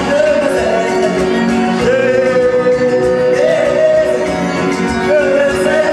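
A man singing a slow worship song into a microphone, holding long notes, over guitar accompaniment with a steady beat.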